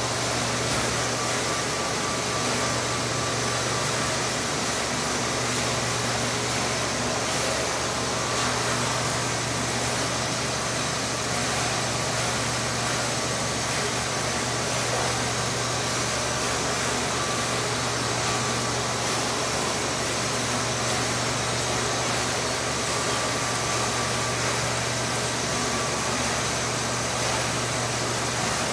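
Steady rushing noise with a low hum from a laboratory air–water flow loop, air driven at high speed through a 1.5-inch clear pipe, near the slug-to-annular flow transition. It holds even throughout, with no separate knocks from passing slugs.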